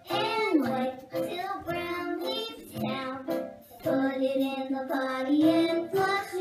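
A young boy singing into a handheld microphone over backing music.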